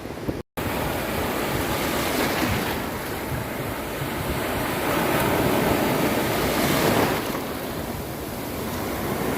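Ocean surf breaking on a beach, a continuous rushing wash that swells and ebbs, loudest about five to seven seconds in. A split-second gap of silence cuts in about half a second in.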